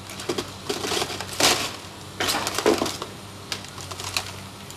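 Excavator demolishing a building's roof structure: irregular cracking, crashing and clattering of breaking material and falling debris, loudest about a second and a half in and again around two and a half seconds in, over the steady low hum of the machine's diesel engine.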